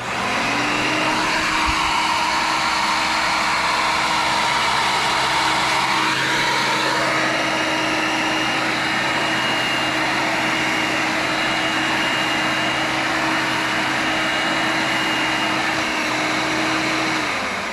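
Hoover Elite 600 upright vacuum, fitted with a new brush roll and new belt, switched on and running steadily, with a rising whine as the motor comes up to speed. Near the end it is switched off and the motor winds down. It runs well.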